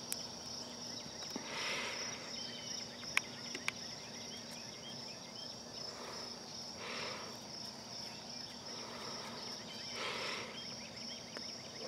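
Crickets chirping in a steady, high, pulsing trill. Three soft exhales of cigarette smoke come about two, seven and ten seconds in, and there are a couple of faint clicks around three seconds in.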